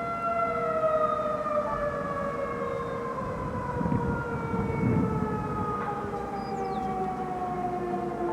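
Federal Signal 2001-DC rotating outdoor warning siren winding down at the end of its 30-second alert, its steady wail sliding slowly and continuously lower in pitch. Two brief low rumbles come through about four and five seconds in.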